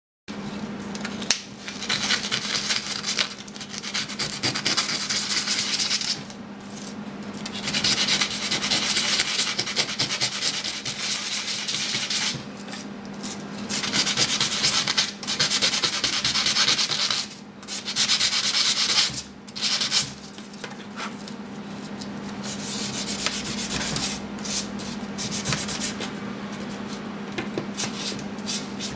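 Abrasive sanding pad scrubbing the copper face of a copper-clad board, in runs of several seconds with short pauses between them. In the last several seconds the scrubbing gives way to softer, steadier rubbing as a cotton pad wipes the copper.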